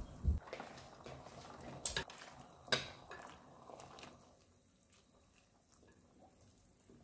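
Water spinach tipped into a glass pot of boiling water with a couple of soft thumps, then chopsticks clicking twice against the pot as they push the greens under the water. The boiling water bubbles and sloshes, then goes quieter after about four seconds as the cold greens take it off the boil during blanching.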